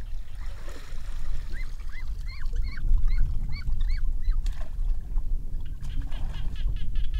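A duck, grabbed by hand in a muddy pond, giving a quick run of about nine short honking squawks over a couple of seconds, then one lower call. Near the end comes a fast flurry of splashing as it is held in the water.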